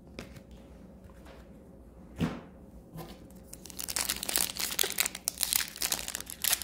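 A foil trading-card pack wrapper crinkling and tearing as it is opened by hand, starting about four seconds in and going on densely. Before it come a few faint handling clicks and one short, louder sound.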